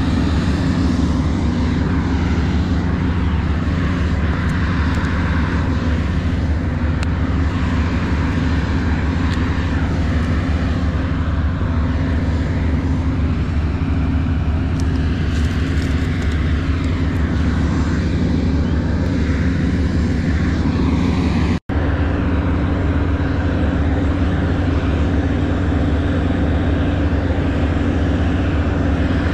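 A steady, loud low engine drone that never changes pitch, cut by a split-second dropout about three-quarters of the way through.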